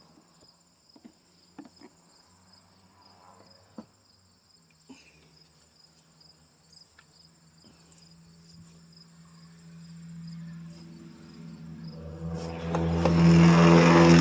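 Crickets chirping steadily, with a few light clicks and knocks. From about ten seconds in, a vehicle with a loud exhaust approaches and swells to its loudest near the end.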